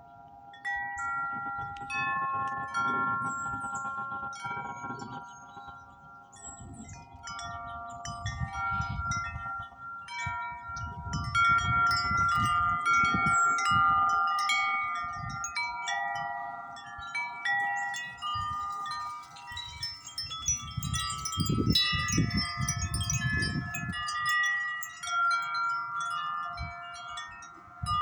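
Grace Note wind chimes ringing continuously in gusty wind: many overlapping, sustained, pitched notes struck over and over, with gusts of wind rumbling on the microphone.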